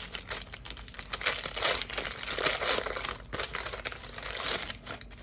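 Crinkly packaging rustling and crackling in irregular handling as a spoon is unwrapped from it.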